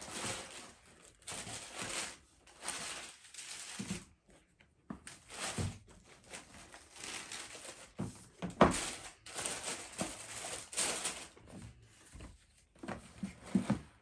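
Tissue paper rustling and crinkling in a cardboard shoebox as a sneaker is unwrapped and lifted out, in repeated swishes. About eight and a half seconds in, a sharp knock, the loudest sound.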